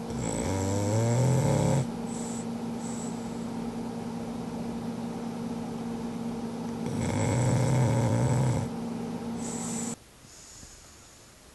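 French bulldog snoring in its sleep: two long, loud snores about seven seconds apart, with quieter noise between them. A steady hum underneath cuts off suddenly near the end.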